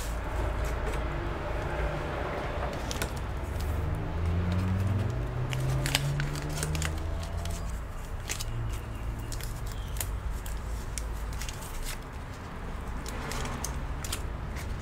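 Hands working on a laptop with tape and small parts: scattered small clicks and taps, over a steady low hum. A low tone rises and holds for a few seconds about four seconds in.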